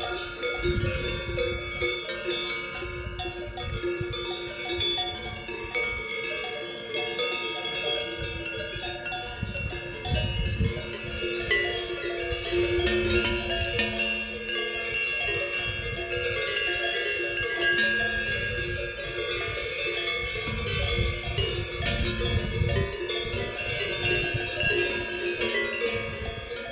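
Cowbells hung on grazing cows ringing without a break, many bells clanking irregularly at different pitches at once.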